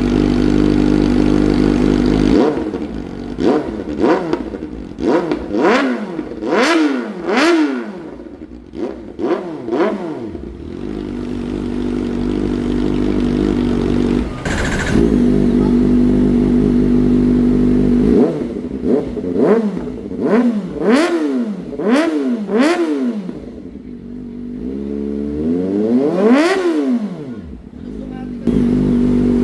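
Kawasaki ZX-4RR's 399 cc inline-four with a slip-on exhaust, idling and revved in two runs of quick throttle blips with idle between them. Near the end comes one longer, higher rev before it settles back to idle.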